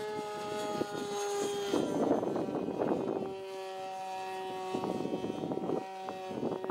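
Irvine 53 two-stroke nitro glow engine of a model aerobatic plane running at high revs in flight: a steady, high-pitched buzz that shifts slightly in pitch a few times as the plane manoeuvres. Bursts of wind noise on the microphone come and go.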